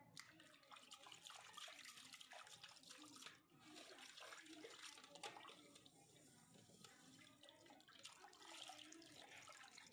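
Faint sloshing and splashing of muddy water as a steel bowl is scooped and swirled through it in a wide basin, washing jewellers' dust.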